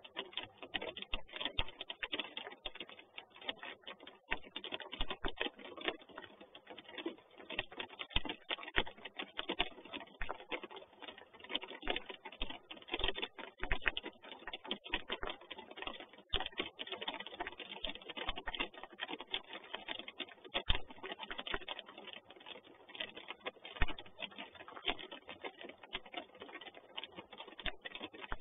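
Rain drops ticking on a nest box close to the microphone: a dense, irregular run of small taps and clicks.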